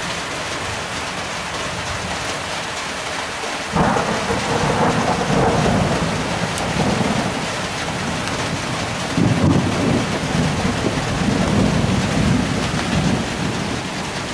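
Thunderstorm: steady rain throughout, with a sudden thunderclap about four seconds in that rolls on as a rumble, then swells into a second rumble about nine seconds in.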